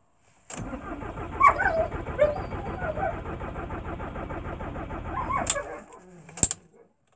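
Starter motor cranking a cold VW T4 diesel engine for about five seconds, a fast even chugging with a few high squeaky glides over it, then stopping sharply without the engine catching. A single sharp click follows about a second later.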